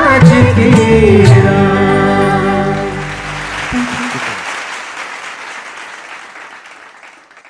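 Singers and a live band end a Hindi film song: a last sung phrase, then the final chord held until it dies away about four seconds in. Audience applause rises over it and fades gradually out.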